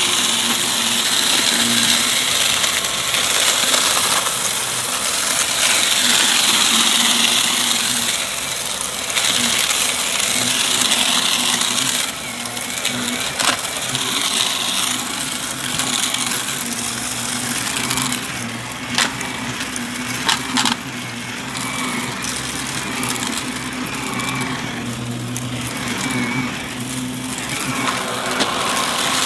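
Shark Navigator upright vacuum running steadily, its brushroll crunching and rattling, with sharp clicks now and then as it pulls up debris.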